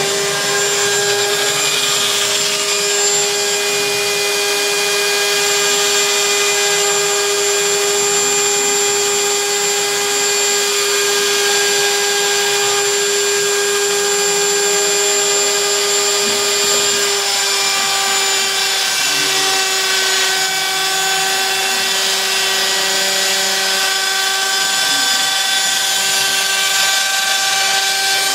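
Spindle motor of a Prusa i3 converted into a CNC machine, running steadily with a high whine and hiss; its pitch sags slightly a couple of times in the second half.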